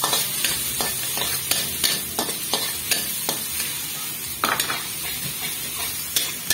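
Minced garlic and ginger sizzling in hot oil in a metal wok, stirred with a metal spatula that scrapes and taps against the pan about three times a second, more sparsely later on.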